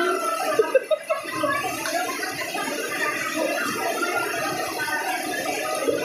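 Crowd of onlookers shouting and chattering over one another, with a few short, sharp loud sounds about a second in.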